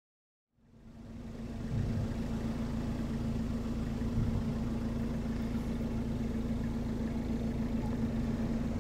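Car engine idling steadily, fading in over the first second or so, with a steady low hum over a rumble.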